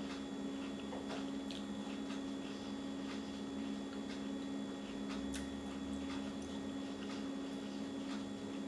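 Quiet chewing of fresh fruit, with small scattered wet mouth clicks and squishes, over a steady low hum.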